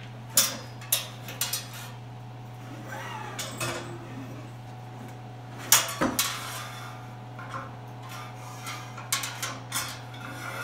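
Metal clinks, knocks and scrapes of a hose reel's steel parts being handled as the reel is taken apart and the crank handle's axle tube is worked out of the drum. A few sharp clinks come early, a louder knock about six seconds in, and more clicks near the end.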